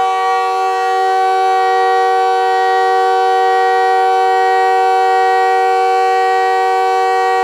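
Montréal Canadiens hockey goal horn blowing one long, loud, steady blast of several pitches sounding together as a chord.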